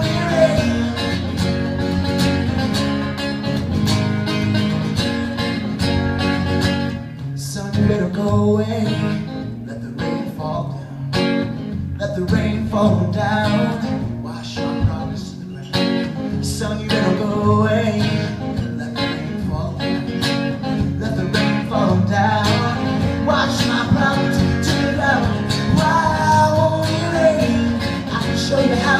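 Acoustic guitar strummed with a man singing over it, a solo live song. The playing thins and drops in level for a while around the middle before filling out again.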